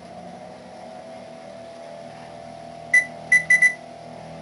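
Electric range's touch control panel beeping four times in quick succession about three seconds in as the oven timer keys are pressed. A steady hum from the range runs underneath.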